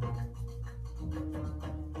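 Music from an FM radio broadcast playing over the hi-fi: pitched notes over a bass line, with light percussion.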